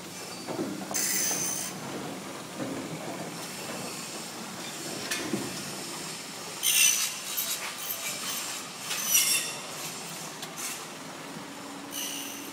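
Steel sliding bed of an Isuzu NPR slide-bed truck in motion: several high-pitched metal squeals come and go over a steady mechanical noise.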